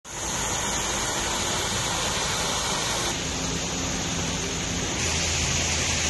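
Man-made rock waterfall, water rushing and splashing into its pool as a steady hiss. The hiss shifts slightly in tone about three seconds in and again about five seconds in.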